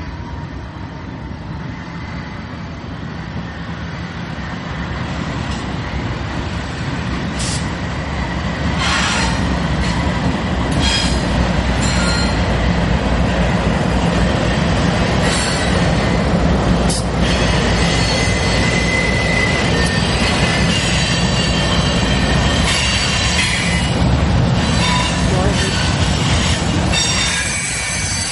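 Freight train passing: diesel locomotive rumble growing louder over the first several seconds as the train arrives. Then a steady rumble of railcars, with steel wheels clicking over rail joints and a brief high wheel squeal about two-thirds of the way in.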